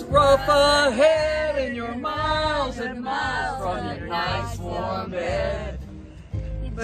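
Men's and women's voices singing together without instruments inside a car, holding long wavering notes. A low steady road rumble runs underneath.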